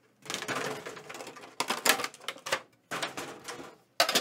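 Clear plastic tin insert crinkling and a metal Pokémon card tin clattering as they are handled, in two long runs of rustle and rattle, with a few sharp clicks near the end.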